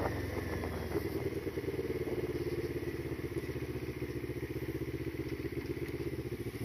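CFMoto NK400's parallel-twin engine running at low revs as the motorcycle rolls slowly, with a fast, even pulsing to its note.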